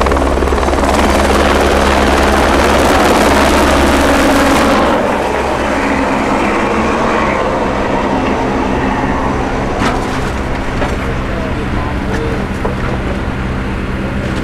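Medical helicopter's rotor and turbine noise, loud for about the first five seconds and then falling away, with a steady low hum continuing underneath.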